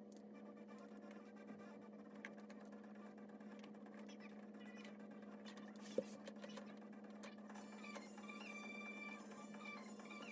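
Quiet room tone: a steady low hum with faint scattered ticks and rustles, and one sharp click about six seconds in.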